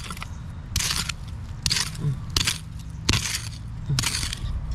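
Small hand hoe chopping and scraping into loose, pebbly dirt: five short strokes, roughly one every three-quarters of a second.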